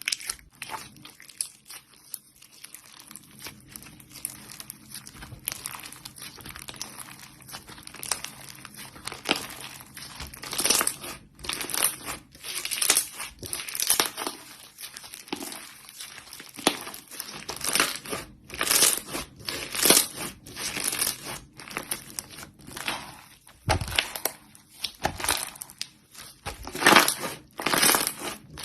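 Slime being squeezed and pressed by hand, crackling and crinkling in irregular bursts that come thicker and louder after about ten seconds.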